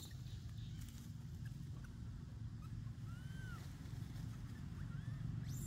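Steady low rumble of outdoor background noise, with a few faint, short arched chirps about halfway through.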